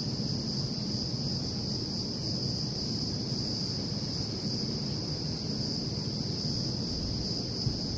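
Steady outdoor insect chorus, a continuous high-pitched drone, over a low background rumble, with a single faint tick near the end.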